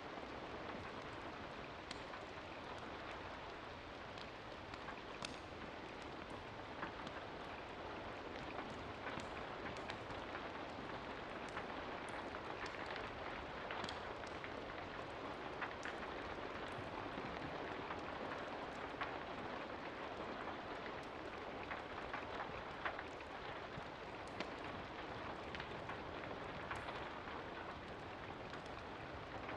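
Steady rain falling, an even hiss with many scattered sharp ticks.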